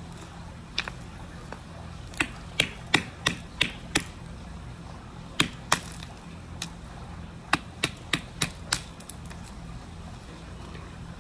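Claw hammer striking a block of ice on concrete: a run of sharp knocks in irregular groups, some in quick succession, as the ice cracks and chips apart.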